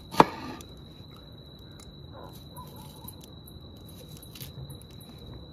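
Chef's knife cutting red onion on a wooden cutting board: one sharp knock of the blade on the board about a quarter second in, then a few quieter cuts. A steady high insect tone runs underneath.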